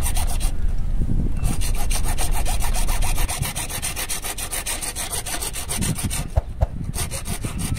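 Hand hacksaw cutting through a plumbing pipe with quick, steady back-and-forth strokes.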